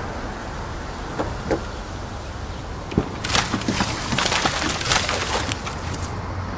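Sharp cracking and snapping sounds over a steady background noise. A few single clicks come first, then from about three seconds in comes a dense run of crackles lasting about two seconds.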